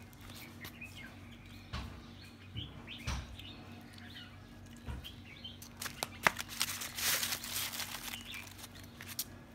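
Aluminium foil rustling and crinkling as a hand grabs it, loudest about seven seconds in, with a sharp click just before. Small birds chirp now and then in the background.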